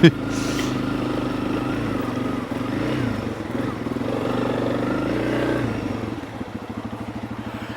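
Honda CRF300 Rally's single-cylinder engine running at a steady cruising speed, then dropping off the throttle about six seconds in to a slow, even low-rev beat.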